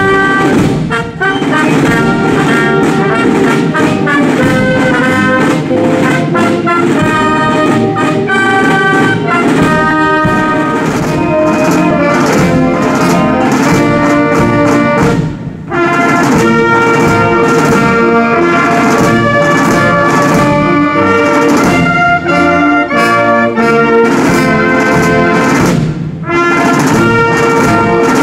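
Military brass band playing, with trumpets and trombones in front, pausing briefly about halfway through and again near the end.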